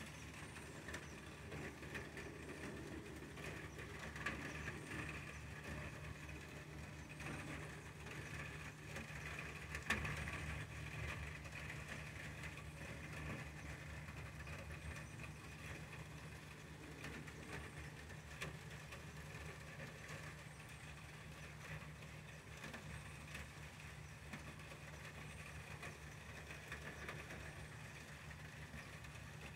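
Faint steady low rumble under a soft, even hiss of outdoor ambience, with small faint high chirps every few seconds.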